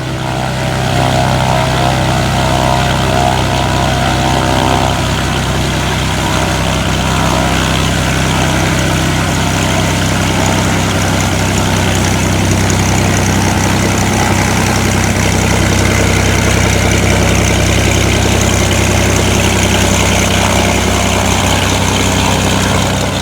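Floatplane's piston engine and propeller running loud and steady.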